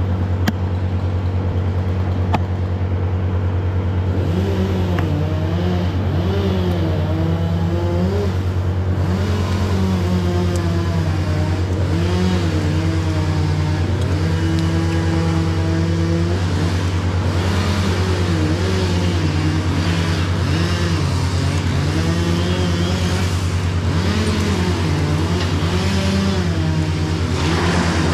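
Wood chipper's engine running steadily at the ground, with a constant low hum and a pitch that keeps rising and falling from about four seconds in.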